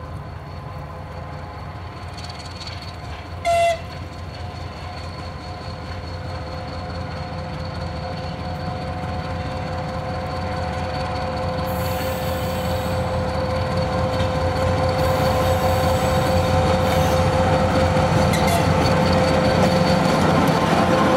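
TGM6A diesel-hydraulic shunting locomotive hauling a freight train, running steadily and growing louder as it approaches and passes. It gives one short horn toot about three and a half seconds in.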